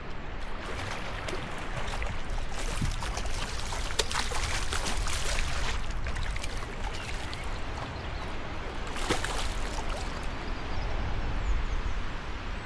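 Wind buffeting the microphone outdoors: a steady low rumble with gusts of rushing noise that swell twice, about two seconds in and again near the end.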